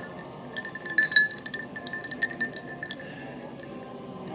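Ice cubes clinking against the sides of a tall glass of iced coffee held in the hand: a quick run of bright, ringing clinks for about two and a half seconds, loudest about a second in.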